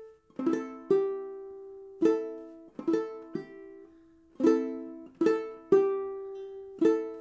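Duke 10 banjo ukulele in reentrant high-G tuning played clawhammer style, slowly and evenly: a single note picked down with a fingernail, a down-brush across the strings, and the thumb plucking the high G string, repeated over and over with each note ringing and fading.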